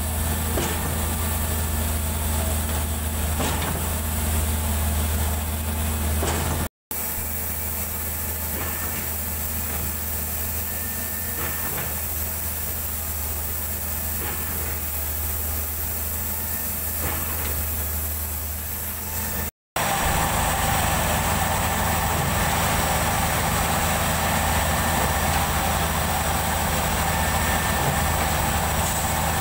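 Heavy diesel engines of a truck-mounted concrete pump and a concrete mixer truck running steadily during pumping, a constant low hum. The sound drops out briefly twice, about 7 and 20 seconds in, where the clips are cut, and the last part is hissier.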